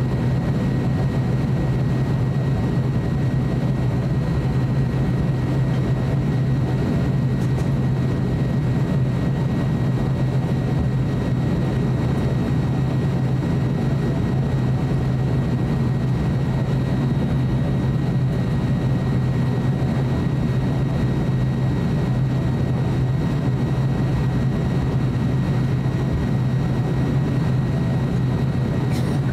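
ATR 42-600 turboprop airliner taxiing, heard from inside the cabin: its Pratt & Whitney PW127 engines and propellers at taxi power give a steady low drone with a faint, thin high whine over it.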